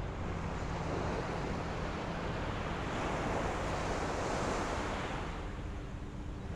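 Ocean surf: a wave rushes in, swelling to a peak over a few seconds and then washing back, with wind rumbling on the microphone.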